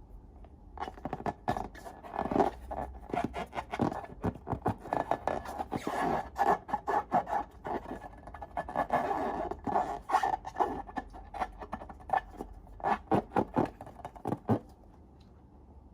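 Slime-making materials and balloons handled close to the microphone: a dense run of sharp, sticky clicks and scraping that stops suddenly about fourteen and a half seconds in.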